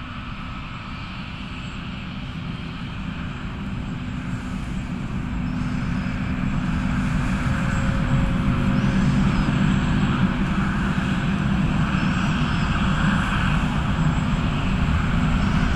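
Jet engines of a Boeing 757 airliner running at taxi power as it taxis past, a steady engine noise that grows gradually louder.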